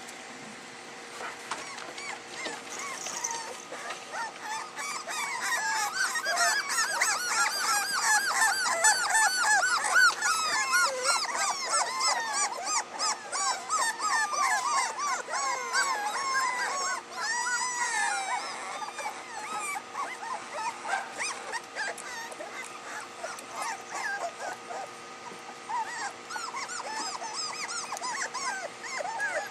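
A litter of soft-coated wheaten terrier puppies whining and yelping: many short, high cries overlap, busiest through the middle stretch.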